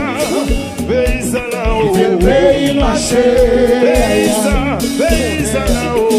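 Live Haitian konpa band playing: a male lead singer over electric guitar, drum kit and a steady beat, with cymbal strokes.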